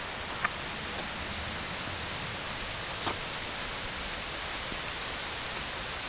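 Steady hiss of water, like rain or rushing runoff, with two faint ticks about half a second and three seconds in.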